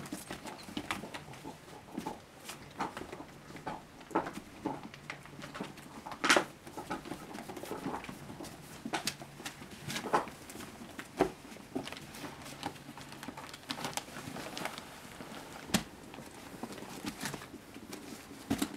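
Puppies scrabbling and play-biting on newspaper bedding: rustling paper and scattered light clicks and knocks, with one louder knock about six seconds in.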